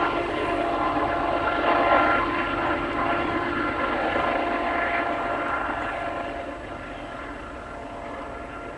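Rear distributed-power locomotive, a rebuilt GE AC44CW (Union Pacific CM44AC), working hard in notch 8 as it pushes a loaded grain train: its diesel engine screaming loudly, a steady whine of several held tones over a rumble. It fades as the unit draws away, about six seconds in.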